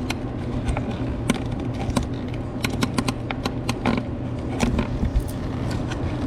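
Irregular plastic clicks and rattles from a car door trim panel and its wiring connectors being worked loose by hand, over a steady low hum.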